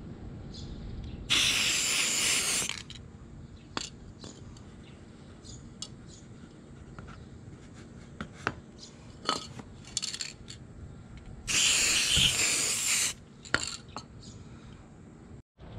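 Aerosol spray-paint can hissing in two bursts of about a second and a half each, coating a metal knife handle. Light taps and clinks come in between.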